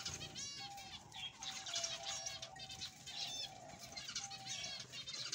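Zebra finches calling: a flock giving short, nasal calls one after another, several a second at times.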